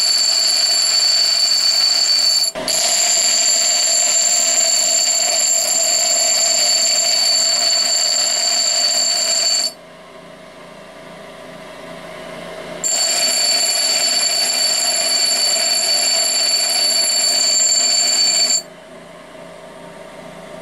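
An old bench grinder's abrasive wheel grinds a steel bar with a loud, steady, high ringing screech. This comes in two long bouts, the first briefly broken a couple of seconds in. Between the bouts and near the end the grinder runs on freely with a quieter hum, its motor holding speed under the load.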